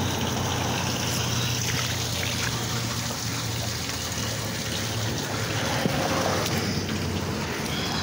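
Pooled water on pavement running and trickling away down a freshly unclogged drain, a steady wash of flowing water with a low steady hum underneath.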